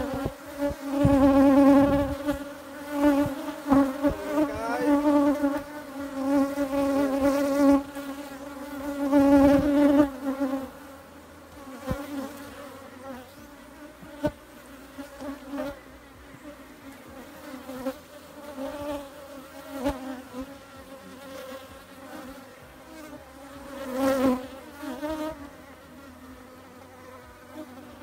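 Africanized honey bees buzzing close past the microphone, a loud wavering buzz for about the first ten seconds, then a softer hum with another close pass near the end. Light knocks come from the wooden hive frames being handled.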